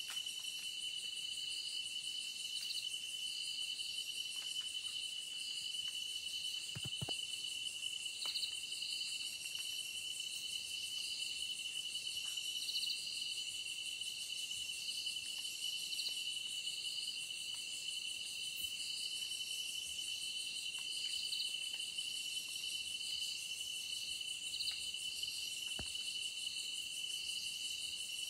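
Night insect chorus: one steady high trill with a pulsing chirp repeating over it, and a few faint clicks.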